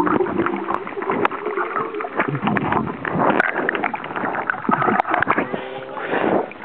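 Water heard from a camera held underwater: muffled sloshing and gurgling with crackles and clicks against the housing, then a rush of splashing about six seconds in as the camera breaks the surface.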